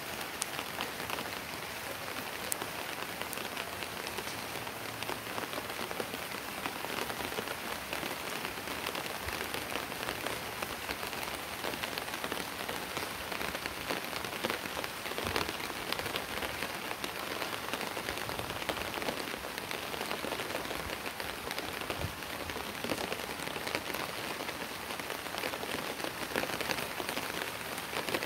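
Steady rain falling on a wet concrete rooftop: an even wash of noise made of many small drop impacts, with no let-up.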